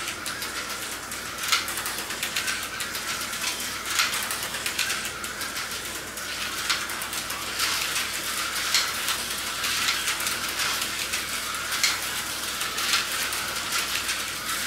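Tyco HO-scale slot cars running on a plastic track: a steady high whir and hiss from the small electric motors and pickups, with irregular clicks and clatter as the cars run over the track.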